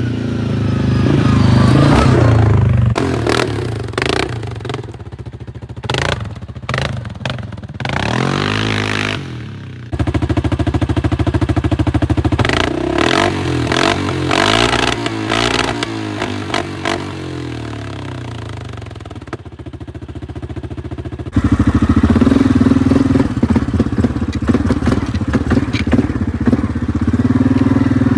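Yamaha Grizzly 700 ATV's single-cylinder engine running through a modified exhaust, revving up and down. The sound changes abruptly about ten seconds in and again past twenty seconds, where separate takes are joined.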